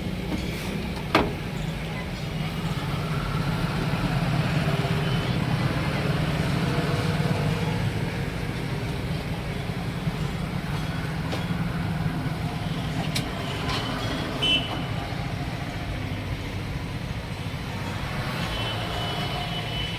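A vehicle engine running steadily, with a few sharp knocks, the loudest about a second in and near the middle.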